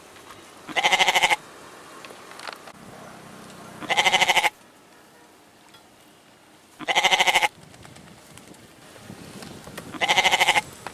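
Goat bleating four times, about three seconds apart, each a short wavering call.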